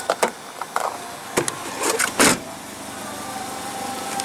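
Rear hatch of a 2014 Toyota Yaris being pulled down and shut: a few light clicks and knocks, then one loud thud about two seconds in as it latches.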